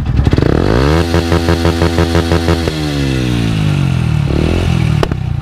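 Yamaha YZF motorcycle engine, fitted with a Devil aftermarket silencer with its baffle removed, revved at full throttle for a sound-level test. The engine climbs in about a second, holds flat-out for under two seconds, then falls away, with one short blip of the throttle near the end. It reads 115 dB at the exhaust.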